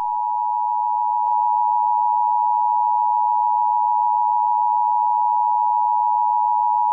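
Emergency Alert System attention signal: two steady tones sounding together as one continuous, harsh alarm tone, announcing an emergency broadcast message.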